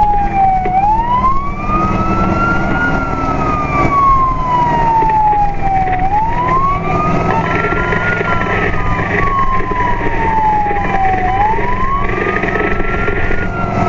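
Fire apparatus siren on a slow wail, rising for about two seconds and falling for about three, repeating about every five seconds, over the truck's engine and road noise.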